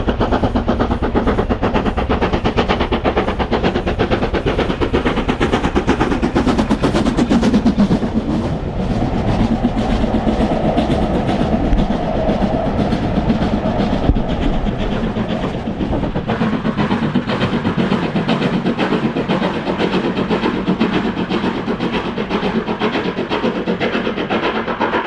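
Steam locomotive working under power, its exhaust beats coming fast and even. The deep rumble under the beats thins out about sixteen seconds in.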